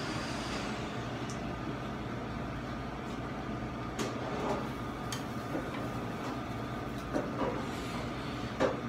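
Steady rumble of kitchen equipment, with a few short clicks and knocks from metal skewers being handled, the loudest near the end.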